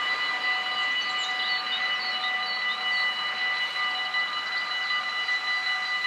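Dutch level-crossing warning bells ringing steadily, several bells sounding together at different pitches, as the half-barriers lower: the crossing is closing for an approaching train.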